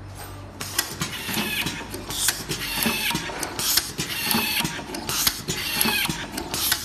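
Blowing-type automatic screw fastening machine running through screws at about one every one and a half seconds. Each cycle brings a burst of air hiss, sharp clicks and a falling motor whine as the screwdriver spindle drives a screw.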